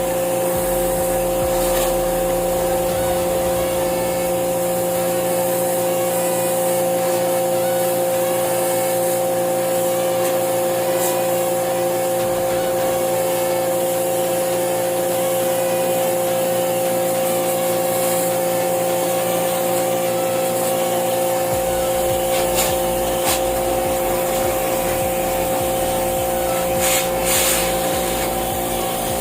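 Electric pressure washer running steadily with a steady motor whine and the hiss of its water jet, as used to spray-clean a split air conditioner. A few brief clicks come near the end.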